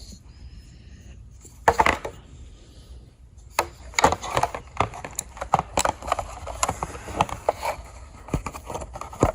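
Metal multi-tool being handled, its folding parts clicking and knocking as the attachments are worked: one sharp knock about two seconds in, then a run of irregular clicks and taps from about halfway.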